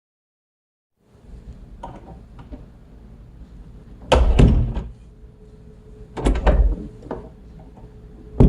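A door being opened and shut: a few small latch clicks, then three loud movements with low thuds about two seconds apart.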